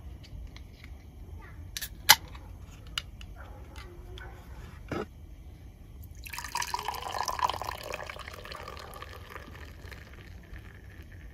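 Canned Asahi Red Eye beer poured into a glass: a fizzing gush starts about six seconds in and lasts about four seconds as the glass fills with foam. Before it come a few sharp clicks, the loudest about two seconds in.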